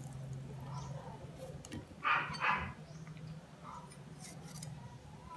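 A dog barking twice in quick succession about two seconds in, over a steady low hum.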